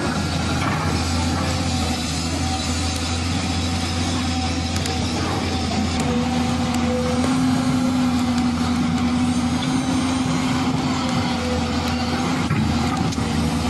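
Remote-control toy excavator running as it digs soil: a steady mechanical hum with a whine that grows stronger around the middle as the arm works.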